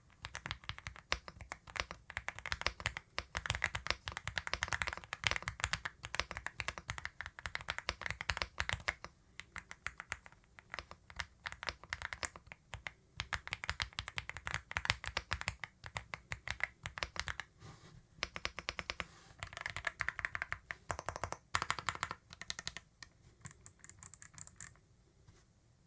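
Leobog Hi75 gasket-mounted 75% mechanical keyboard being typed on quickly, keystrokes coming in fast runs broken by short pauses, with a creamy sound.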